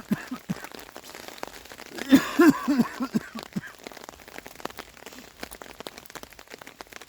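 Steady rain, with many small drops pattering and ticking throughout. A short murmur of voice comes about two seconds in.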